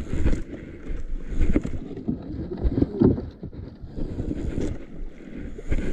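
Wind buffeting the microphone in uneven gusts, with water slapping against the hull of a small outrigger boat and a few light knocks.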